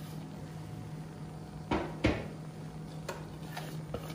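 A plate knocking against the rim of a non-stick cooking pot: two sharp knocks close together about halfway through, then a few lighter taps, over a faint steady hum.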